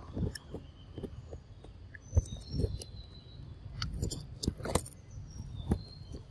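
A long-tailed macaque eating a ripe mango close by: irregular soft wet knocks of biting and chewing, with a short run of sharper smacking clicks about four seconds in. Birds chirp faintly.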